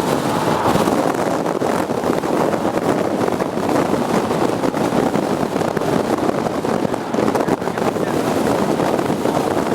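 Strong wind buffeting the microphone in a steady, loud rush, mixed with vehicle noise.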